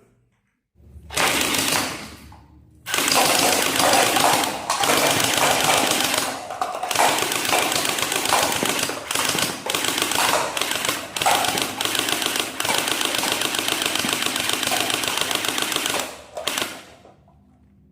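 Toy AK-47 gun firing on full auto: a short rattling burst about a second in, then a long continuous rapid rattle from about three seconds in until near the end, broken by a few brief pauses.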